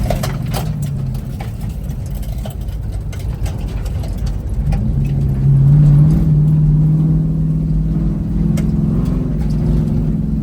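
Vehicle engine running under load. Its note climbs and gets louder about five seconds in, then holds high with small rises and dips.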